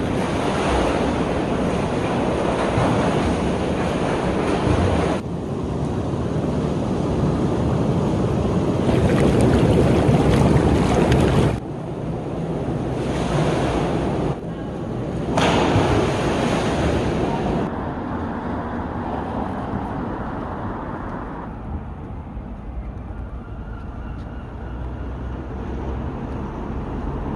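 Sea surf and wind blowing on the microphone, a dense rushing noise that jumps in level abruptly several times and turns quieter and duller for the last third.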